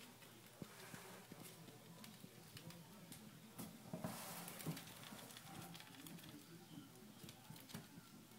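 Near silence: room tone with faint scattered ticks and a brief rustle about four seconds in.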